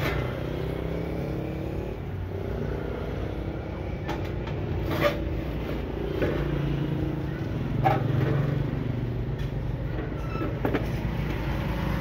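Sheet-metal cover of an inverter welding machine being handled and set back on its chassis, giving a few sharp metal clanks a few seconds apart, over a steady low rumble.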